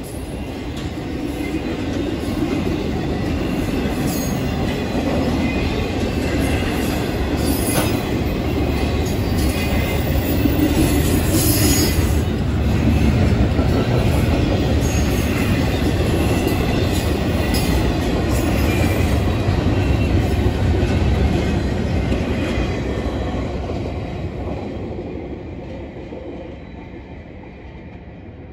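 Double-stack intermodal freight train rolling past: a steady rumble of wheels on rail with a few sharp clanks, fading away near the end as the last cars clear.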